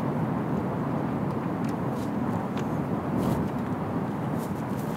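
Steady wind rushing, with a few faint clicks scattered through it as the hard-shell rooftop tent is unlatched and opened.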